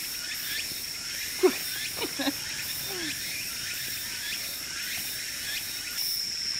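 Insects trilling in the woods: a steady, high-pitched drone that goes on without a break. A few short falling sounds come between about one and a half and three seconds in.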